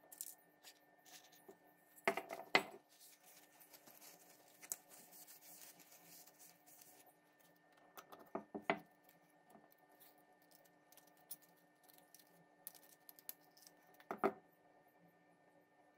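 Metal parts of an 1840 Stocking & Co. pepperbox pistol handled by gloved hands: short clicks and knocks of metal on metal in three clusters, about two seconds in, eight seconds in and fourteen seconds in, with faint rubbing and handling noise between.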